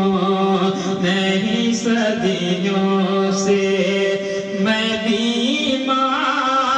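A man singing an Urdu devotional munajat into a microphone, drawing out long, ornamented notes that bend in pitch, with no clear words.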